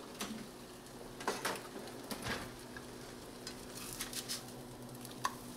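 Eggs frying in a nonstick skillet with a faint steady sizzle, and a spatula scraping and tapping against the pan several times, working under an egg that is sticking for lack of butter.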